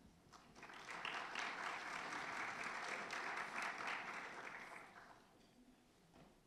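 Audience applauding. The clapping builds about half a second in, holds steady, then dies away after about five seconds.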